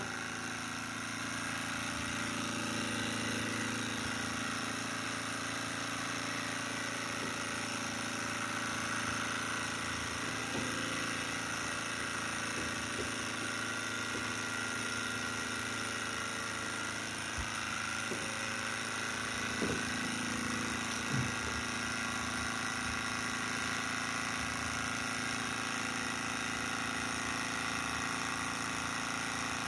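Bohm HB14 twin-cylinder Stirling engine running fast and steady on its burner, with an even, sewing-machine-like mechanical running sound. Two brief small knocks come about two-thirds of the way through.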